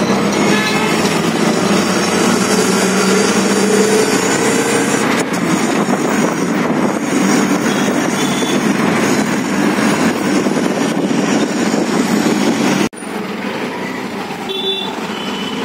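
Auto-rickshaw's small engine running and road and traffic noise heard from inside the open-sided cab on the move. The noise drops suddenly near the end, leaving the engine running more quietly.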